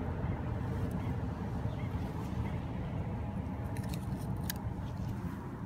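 A steady low outdoor rumble, with a few faint metallic clicks about four seconds in from needle-nose pliers working a swallowed hook out of a largemouth bass's mouth.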